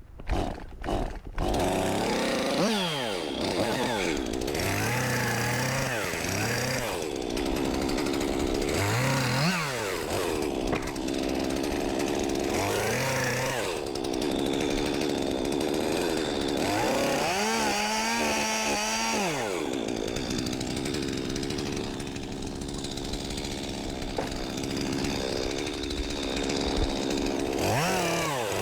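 Gas chainsaw running hard, its engine pitch repeatedly sagging and recovering every few seconds as it bogs under load in the cut and revs back up.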